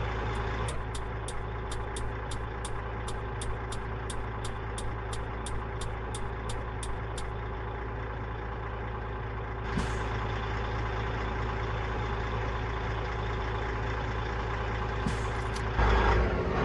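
Mercedes-Benz LS 1634 truck's diesel engine idling steadily, with a regular high tick about three times a second for the first seven seconds and short hisses of air about ten and fifteen seconds in. Near the end comes a louder burst of noise, and the engine's low hum stops.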